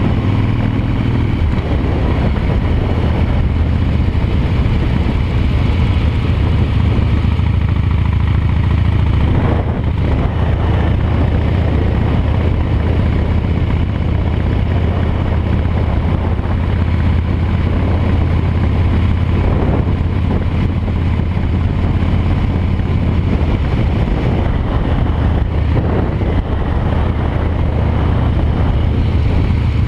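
Harley-Davidson V-twin engine running steadily as the motorcycle cruises along the road.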